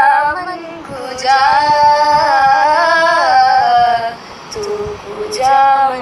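A woman's voice singing a slow, drawn-out melodic line. She holds one long phrase through the middle, breaks off about four seconds in, and starts another phrase near the end.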